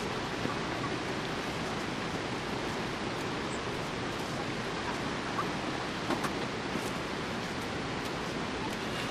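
Steady, even outdoor background hiss with a few faint clicks.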